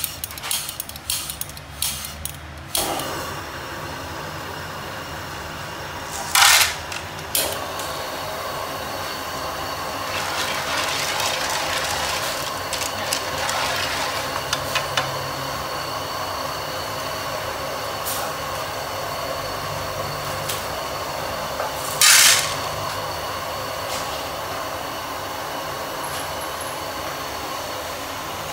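Gas wok burner running with a steady rushing roar while snails sizzle and are stirred in a pan, with metal clinks of pots and utensils in the first few seconds. Two short, loud hisses come about six seconds in and again about twenty-two seconds in.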